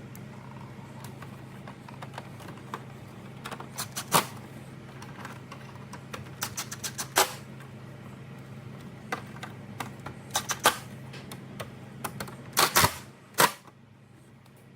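Irregular sharp clicks and snaps, some in quick clusters, the loudest near the end, as plastic grille and light parts are pressed and clipped into place by hand. A steady low hum runs underneath and stops shortly before the end.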